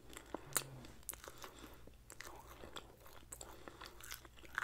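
Close-up chewing and biting of grilled kabob meat, heard as irregular wet mouth clicks and smacks.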